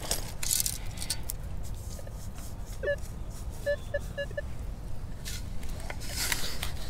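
Minelab Manticore metal detector giving a short target tone about three seconds in, then four quick beeps at one pitch as the coil passes over buried coins. Before and after, sand hisses and rattles in a perforated metal beach scoop as it is dug and shaken.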